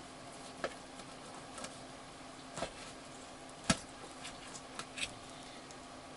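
Scattered light clicks and taps of hands working on a wooden board, with one sharper knock about halfway through.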